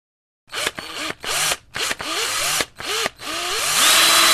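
Electric drill motor revved in several short trigger pulls, its pitch rising and falling with each, then held for a longer run near the end.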